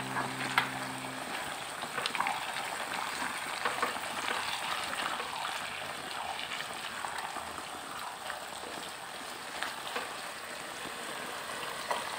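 Squid and vegetables stir-frying in sauce in a nonstick wok: steady sizzling, with scattered clicks and scrapes of a spatula tossing the food.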